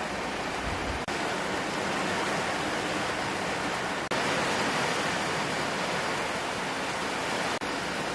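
Rain falling steadily, a dense even hiss, with three brief dips in loudness.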